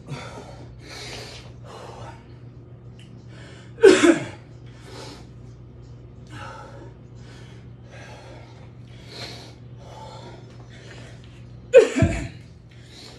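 A man breathing hard after a burpee set, with heavy panting about once a second. Twice, about four seconds in and again near the end, he lets out a loud exhale whose pitch falls, like a groan.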